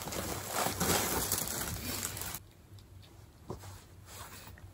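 Sweatshirt fabric rustling and brushing as the garment is pulled on over the head. It stops abruptly about halfway through, leaving a few faint soft taps.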